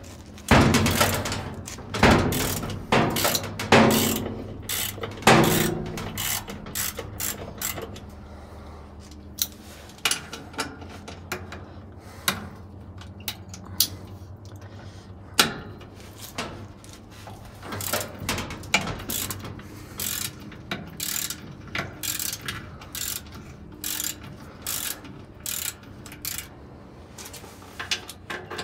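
Socket ratchet wrench clicking as it loosens the bolts on a washer's transmission case. Several louder knocks come in the first five seconds, then runs of quick clicks.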